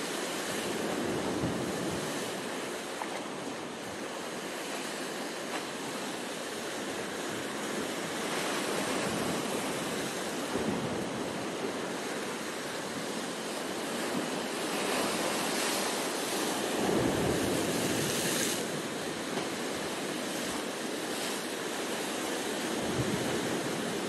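Sea surf breaking and washing around rocks along a rocky shore: a continuous rush that swells and eases with each wave, loudest about two-thirds of the way through.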